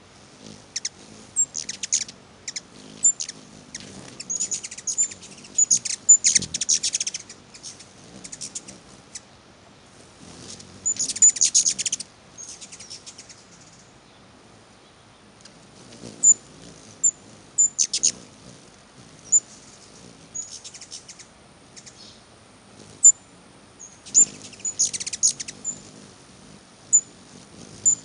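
Hummingbirds squabbling at a feeder: bursts of rapid, very high-pitched chattering and sharp single chip notes, the aggressive calls of birds chasing each other off the feeder.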